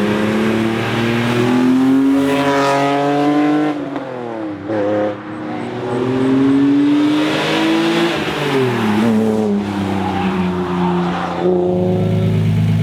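Single-turbo 2JZ inline-six engine in a Nissan 240SX under hard acceleration. The pitch climbs, drops sharply about four seconds in as it shifts or lifts, climbs again to a peak around eight seconds, falls away, and settles to a steadier note near the end.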